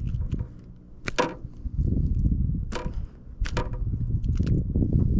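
Handling sounds as a largemouth bass is held and unhooked by hand: a few sharp clicks and knocks, two close together about three and a half seconds in, over a low, uneven rumbling.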